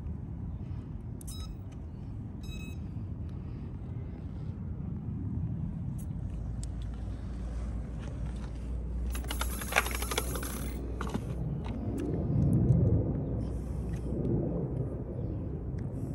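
Eachine E120S direct-drive micro collective-pitch RC helicopter in flight, its brushless motor and rotors giving a thin high whine that grows loud for a couple of seconds around the middle, over a steady low rumble.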